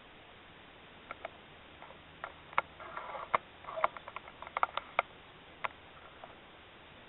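Air rifle being reloaded: a run of sharp clicks and rattles as the action is worked and a pellet loaded, with a short scraping rustle about three seconds in.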